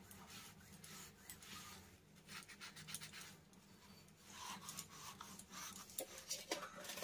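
Faint rubbing and scratching of a soapy sponge scrub pad on a small brass tumbler, in irregular strokes, over a steady low hum.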